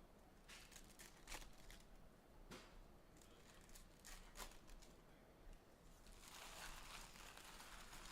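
Faint crinkling and crackling of trading-card pack wrappers being handled, a few short crackles at first. About six seconds in comes a steadier two-second crinkling tear as a pack is ripped open.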